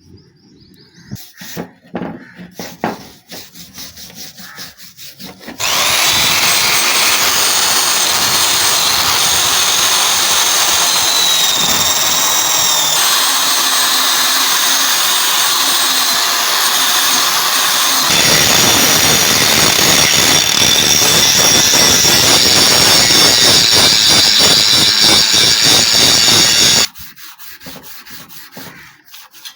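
A few knocks and clicks, then a handheld power tool grinds rust off a steel hammer head for about twenty seconds. The grinding noise carries a high whine. It cuts off near the end, leaving scattered clicks.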